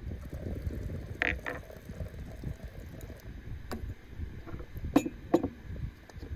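Clinks of glass and metal as a glass teapot is handled at a samovar's tap and its lid is set back on. Two light clinks come about a second in and two louder ringing ones about five seconds in, over a steady low rumble.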